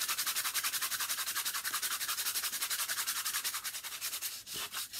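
Hand sanding the edges of a drilled wooden board with a scrap of sandpaper: quick back-and-forth rasping strokes, about five a second, with a short break near the end.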